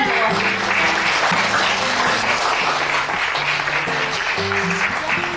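Crowd applauding, with background music of held notes playing underneath.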